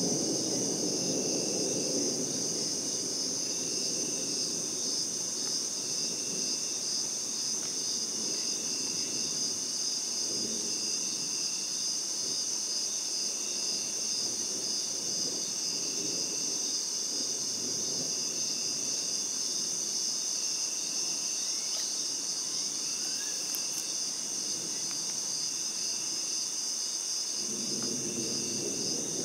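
Night insects chirring in a steady, pulsing high drone, with a short call repeating about once a second. A low rumble swells at the start and again near the end.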